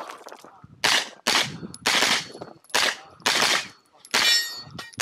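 Pistol-caliber carbine fired six times in about three and a half seconds, the shots spaced roughly half a second to a second apart, each one trailing off briefly.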